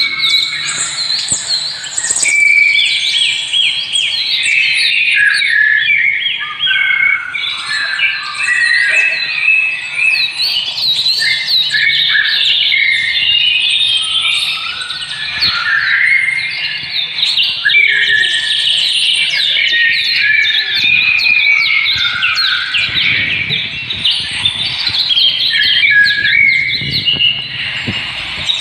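Many small birds chirping at once, a dense overlapping chorus of short high chirps with no break.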